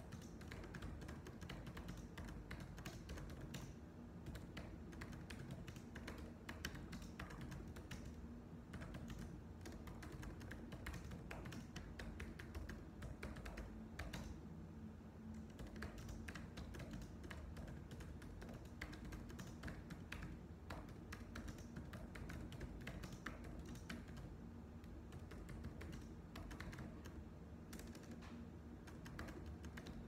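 Computer keyboard being typed on steadily, a continuous run of quick clicking keystrokes with a short pause about halfway through.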